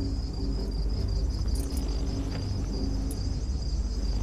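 Crickets chirping steadily in a night ambience, over a low, steady rumbling drone.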